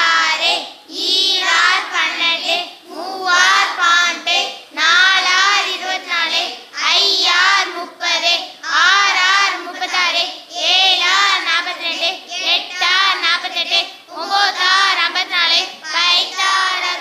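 A group of children singing in sing-song unison without instruments, in short phrases a second or two long.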